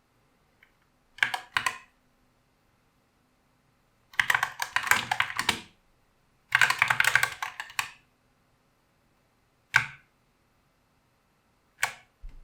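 Typing on an Epomaker SK64 mechanical keyboard with Gateron Optical Black linear switches and PBT keycaps. A few keystrokes about a second in are followed by two longer runs of fast typing in the middle, then single key presses near the end.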